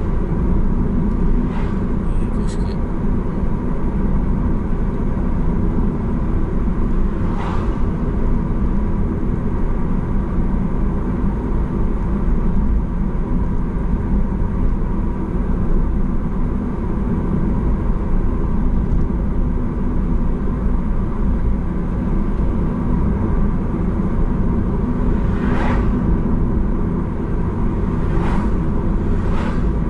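Steady low rumble of a car driving at road speed, heard from inside the cabin: tyre and engine noise. A few faint short sounds rise out of it, one about seven seconds in and several near the end.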